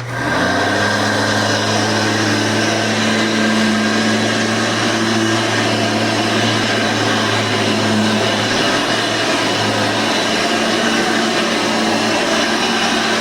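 Hoover Elite 350 upright vacuum cleaner from about 1988–1990 switched on: its motor spins up within about half a second, then runs steadily.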